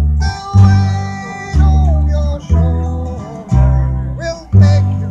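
Live acoustic folk music: strummed acoustic guitar over a bass line that strikes about one note a second, with a voice singing.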